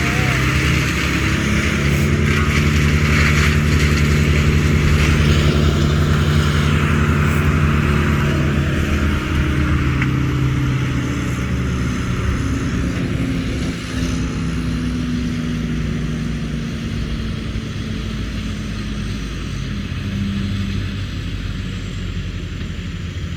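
A large engine running steadily, its pitch drifting slightly up and down, with a hissing wash over it; it eases off a little in the second half.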